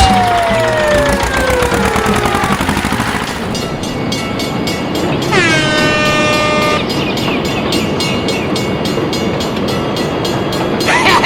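Train running: a fast, regular clickety-clack of wheels over rail joints, with one horn blast of about a second and a half near the middle. A falling tone fades out in the first couple of seconds.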